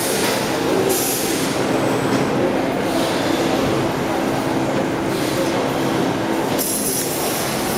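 Double-head CNC 3D wire bending machine running: a steady mechanical hum and whirr, with short hiss-like surges about a second in and again near the end.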